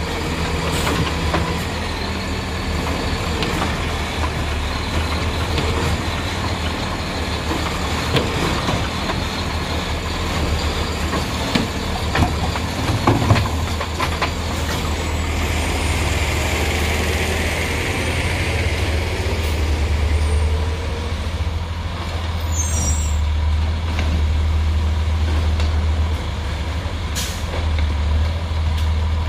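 Automated side-loader garbage truck running, its engine a steady low drone, while the hydraulic arm dumps a recycling cart into the hopper and sets it down. Several clunks come about a third of the way in, and a hiss comes about midway.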